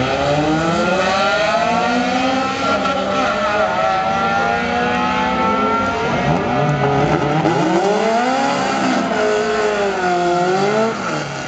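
Two four-cylinder cars, a Honda Civic and an Acura RSX, accelerating hard side by side in a drag race. Their engines climb in pitch through each gear and drop at the upshifts, fading near the end as the cars pull away.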